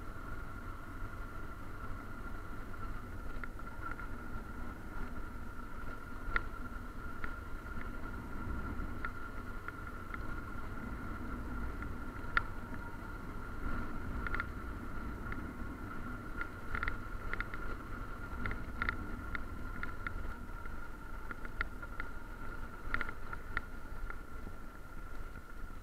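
Motorcycle riding slowly over cobblestone paving: a low engine and tyre rumble with scattered, irregular rattles and clicks, more frequent in the second half, over a steady high whine.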